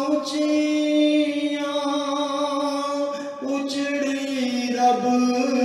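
A man singing a devotional naat solo, holding long drawn-out notes that change pitch a few times.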